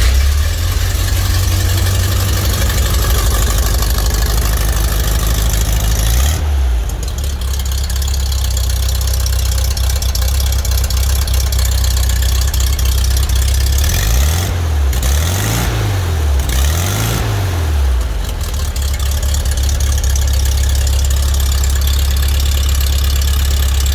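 Air-cooled Volkswagen flat-four engine idling just after starting, freshly tuned with valves adjusted and a new ignition coil. Engine speed changes about a quarter of the way in, and the engine is given three quick throttle blips around the middle before settling back to a steady idle. It is running smoothly, which the owner judges sounds pretty good.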